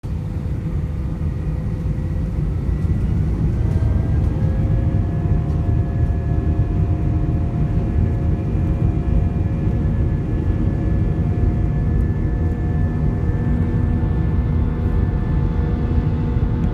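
Airplane engines powering up for the takeoff roll, heard from inside the cabin: a heavy low rumble with whining tones that rise in pitch over the first few seconds, then hold steady.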